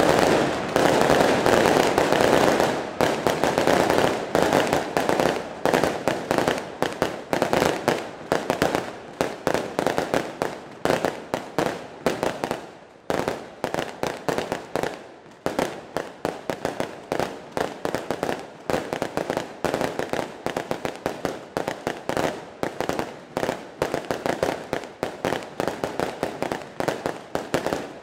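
Fireworks display: a dense, continuous barrage of bangs and crackle for the first few seconds, then a rapid string of sharp aerial shell reports, several a second.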